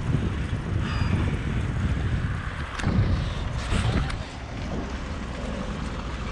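Wind buffeting the microphone of a handheld camera on a moving bicycle: an uneven low rumble, with louder gusts about three to four seconds in.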